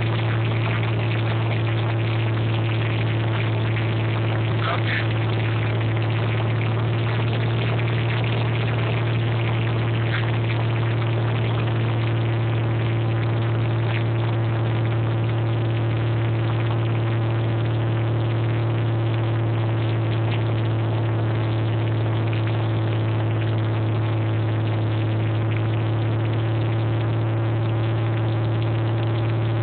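Cessna 210's single piston engine and propeller droning steadily, heard from inside the cabin during the night approach.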